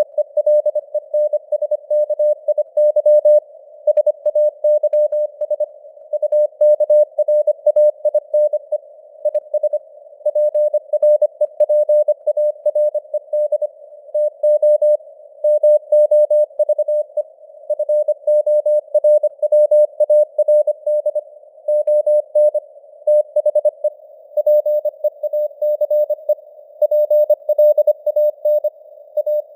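Morse code at 25 words per minute: a single mid-pitched tone keyed on and off in rapid dots and dashes, inside a narrow band of simulated radio hiss. The signal strength rises and falls (QSB fading).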